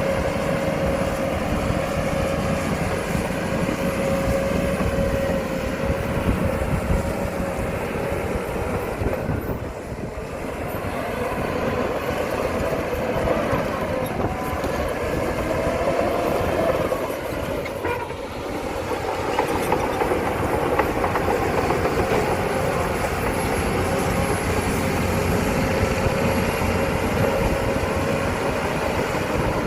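Shantui bulldozer working: its diesel engine runs steadily under a continuous clattering rumble, with a held whine that rises and dips about halfway through.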